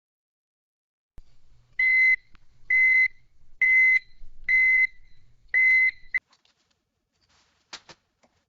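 Five evenly spaced electronic beeps, each about half a second long, at one steady high pitch, over a faint low hum. Two short clicks follow near the end.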